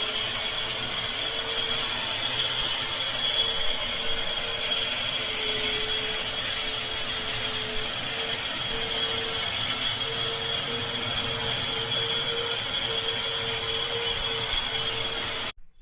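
Electric power tool running under steady load with a constant whine and a grinding, cutting hiss; it stops abruptly near the end.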